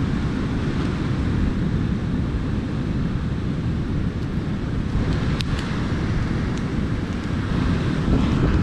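Wind buffeting the microphone: a steady, uneven low rumble, with a couple of faint clicks about five seconds in.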